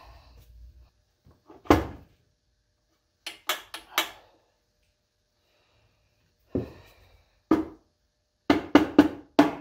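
Sharp knocks and clicks of hard parts and tools being handled on the engine during crankcase cover reassembly. They come singly and in small clusters at first, then as a quick run of about four knocks a second near the end.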